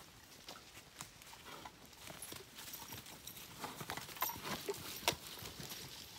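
A horse's hooves and people's footsteps on a soft, leaf-covered dirt trail, as irregular muffled thuds. They get louder as the horse walks past close by, about four to five seconds in.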